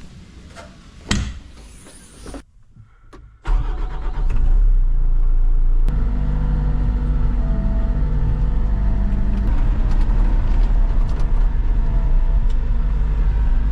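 A single knock about a second in, then an engine starts about three and a half seconds in and keeps running steadily, picking up a little a couple of seconds later.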